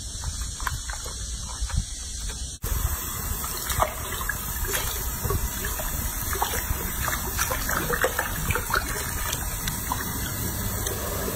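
Tap water pouring from a faucet into a washbasin full of bathwater. It starts abruptly about two and a half seconds in, over splashing as hands wash a baby monkey in the basin.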